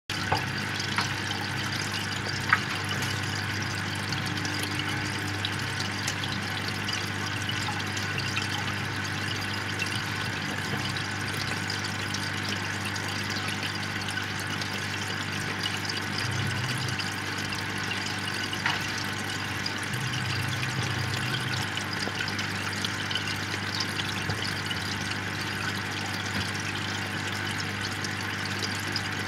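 Aquarium air stone bubbling steadily in the water, with a steady low hum underneath and a few faint ticks.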